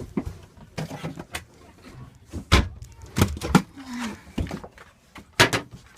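Scattered sharp knocks and clacks, a few near the start, several through the middle and a close pair near the end, with a short vocal sound about four seconds in.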